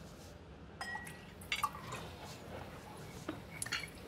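Quiet dining-room ambience: a few scattered light clinks of glassware and tableware over a steady low room hum.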